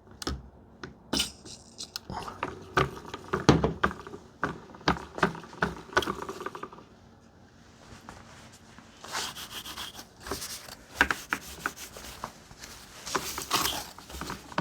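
A cloth wiping excess product off plastic vacuum cleaner parts: irregular rubbing strokes with small clicks and knocks from handling, easing off briefly about halfway.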